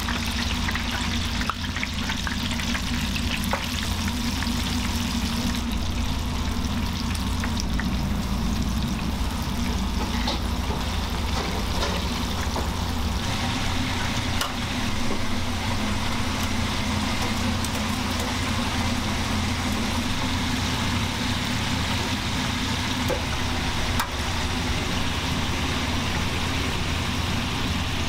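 Breaded chicken deep-frying in a commercial fryer: the oil sizzles and bubbles steadily, over a constant low hum of kitchen machinery.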